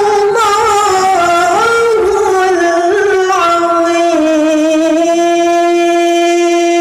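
A woman reciting the Qur'an in the melodic mujawwad style into a handheld microphone. Her voice winds through ornamented turns, then settles about four seconds in on one long held note.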